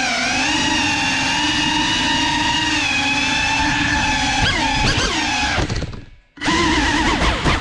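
GEPRC CineLog35 cinewhoop's brushless motors and ducted propellers whining, the pitch rising and falling with the throttle. About six seconds in the whine fades almost away, then cuts back in abruptly.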